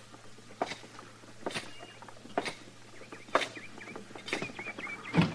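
Slow, evenly paced boot footsteps on a hard floor, six steps a little under a second apart, with a light metallic jingle on each step like spurs. The last step is the heaviest. This is a radio-drama sound effect of a man walking.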